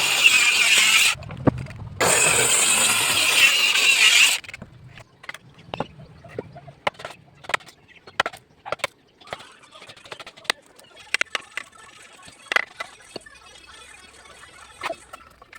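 A power tool working wood runs loudly for about a second, stops, then runs again for about two more seconds. After that come scattered light knocks and clicks.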